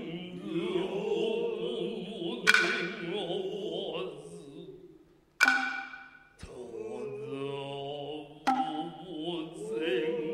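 Noh hayashi drumming: several sharp, briefly ringing strikes on the tsuzumi hand drums, a few seconds apart. Between the strikes come the drummers' long, wavering kakegoe calls.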